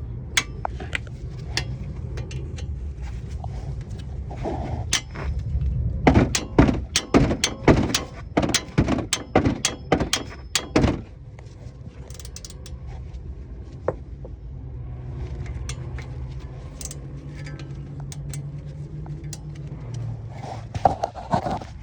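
Hammer blows on a car's front brake assembly during a brake and rotor job: scattered strikes, then a fast run of heavy blows about two a second, then a few more strikes near the end.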